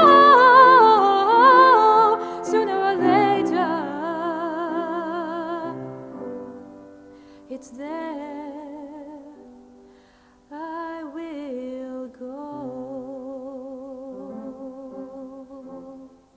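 A sung hymn or anthem: a singer holds slow notes with wide vibrato over sustained keyboard chords. It is loud at first and fades off, and after a short break about ten seconds in, softer singing goes on.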